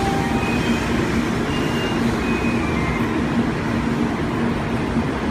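Tokaido Shinkansen train pulling out of the station platform: a steady rumble of running and rolling noise with a constant low hum.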